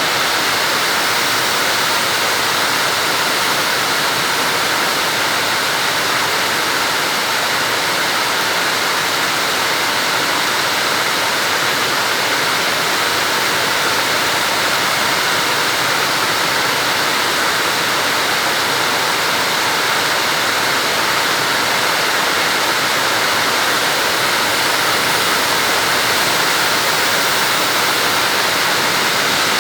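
Heavy rain pouring down steadily, with floodwater rushing along a road in a loud, even hiss.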